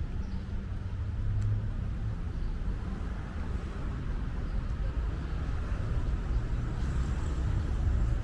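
City street traffic: a steady low rumble of cars passing.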